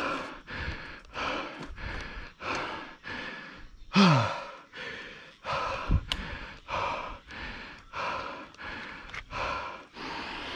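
A man panting hard and out of breath after climbing a steep hill on a mountain bike, about two breaths a second. About four seconds in comes one louder voiced exhale that falls in pitch.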